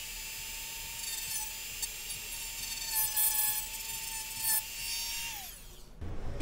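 Dremel rotary tool with a small abrasive cut-off disc spinning at high speed, a steady high whine, as it grinds into the plastic end of a PCIe slot. The grinding is loudest about three seconds in. Near the end the motor winds down and stops.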